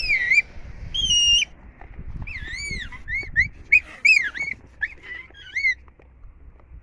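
Young baboons squealing: two longer high-pitched squeals in the first second and a half, then a run of short squeals that rise and fall in pitch, ending about six seconds in.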